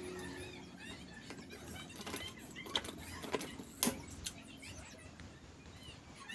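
Hand pop-rivet gun setting rivets through the rims of two plastic paint buckets: a few sharp clicks and snaps, the loudest a little under four seconds in.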